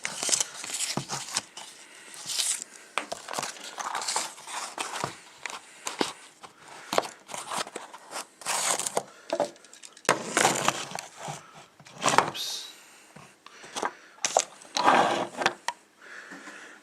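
Airsoft AK hop-up chamber and inner barrel being handled and fitted together by hand: irregular clicks, taps and scraping rustles, with the loudest bursts about 10 and 15 seconds in.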